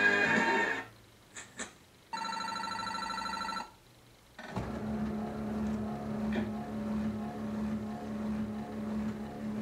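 Bally Wulff 'That's Cool' slot machine playing its electronic game sounds. A short loud jingle opens, then come two brief high beeps and a steady electronic tone lasting about a second and a half. After a short pause, a looping electronic tune plays while the reels spin.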